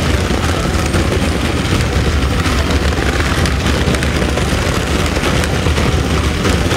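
Several battery-powered Tonka Climb-Overs toy trucks running together around a plastic track: a loud, steady, dense noise with a strong low rumble.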